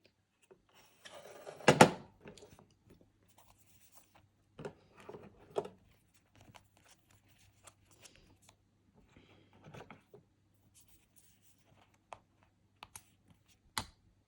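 Stickers and paper being handled for a collage: rustling and peeling, with scattered light clicks and taps, and a louder knock about two seconds in.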